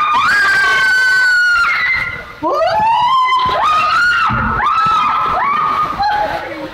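People screaming: a run of long, high-pitched shrieks, one after another, several rising in pitch as they start.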